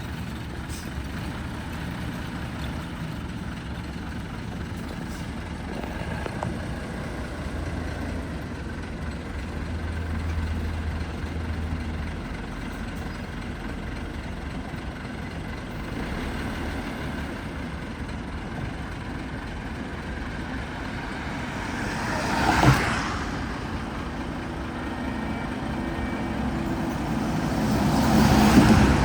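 Heavy diesel truck engine running steadily, with a short sharp burst of noise about 23 seconds in and another vehicle swelling past near the end.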